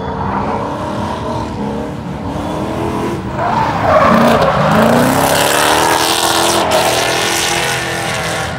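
Drift car's engine revving up about three and a half seconds in, then tyres squealing through a long slide for several seconds.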